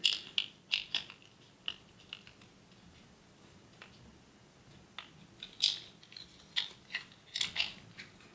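Light clicks, taps and rattles of small hard parts and tools being handled, in a cluster at the start and another over the last few seconds.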